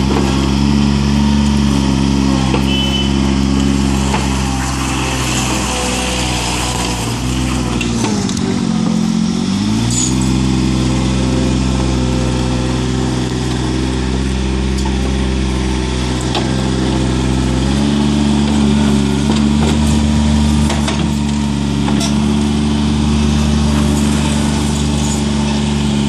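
Bobcat 453 mini skid steer's engine running steadily. Its speed sags and recovers about eight seconds in, then steps up a little around eighteen seconds.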